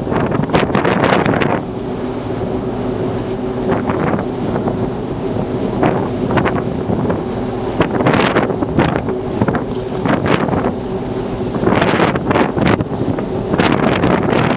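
Wind buffeting the microphone in repeated gusts, over a steady low hum.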